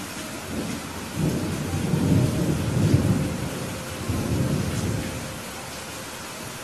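Rolling thunder over steady rain. A low rumble builds about a second in, peaks, swells again a little later, and dies away near the end, while the rain's hiss carries on underneath.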